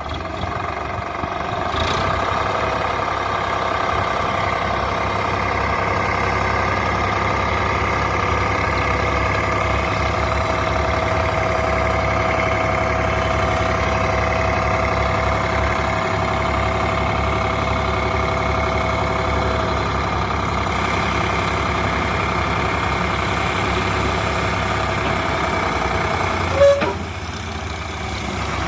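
Heavy diesel engine running steadily at a constant speed, with a short louder knock near the end.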